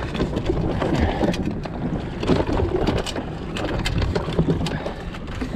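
Water splashing and slapping irregularly against a Wanderer sailing dinghy's hull as it sails through choppy water, with wind buffeting the microphone.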